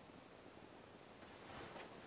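Near silence: faint room hiss, with one soft, brief rustle about one and a half seconds in.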